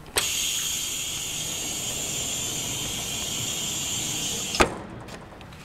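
Compressed air hissing steadily on a Hannon 620H hydraulic die cutter as the die is moved out. It starts with a click and stops about four and a half seconds in with a sharp knock.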